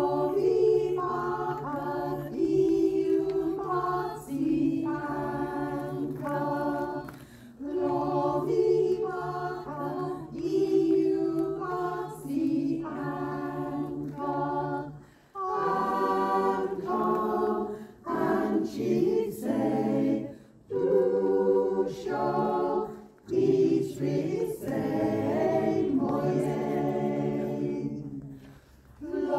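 A choir singing unaccompanied in several parts, in long phrases of held chords with short breaks between them. A low part holds long steady notes beneath the moving upper voices.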